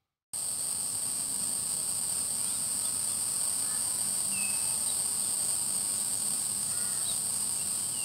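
Steady high-pitched shrill of an insect chorus, starting abruptly just after the start, with a few faint bird chirps over it.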